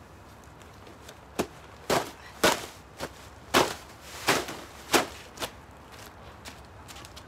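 A large rubber roofing sheet being flapped out over the ground, snapping and slapping down in about eight sharp cracks, roughly two a second.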